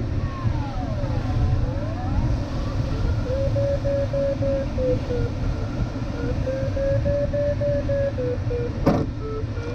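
Airflow rushing over the canopy of an LS7-WL glider cockpit, with the variometer's audio tone sliding up and down in pitch as the climb rate changes. It dips low about a second and a half in, then wavers around a middle pitch. A single sharp click sounds near the end.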